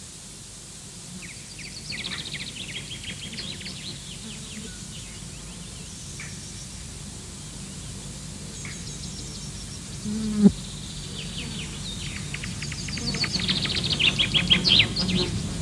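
Small songbirds chirping and twittering in rapid runs of short high notes, busiest at the start and again near the end, over a steady low hum. A brief low sound stands out about ten seconds in.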